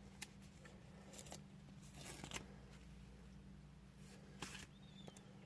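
Faint handling sounds: a few light clicks and short scratchy rustles as a sticker is worked off its backing sheet, over a low steady room hum.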